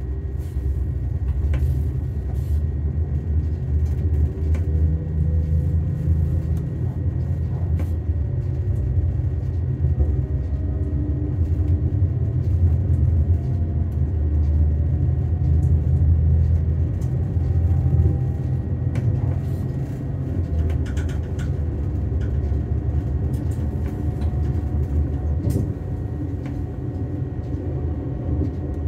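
Diesel railcar running along the line: a steady low engine and running rumble, with faint tones slowly rising in pitch and a few scattered clicks.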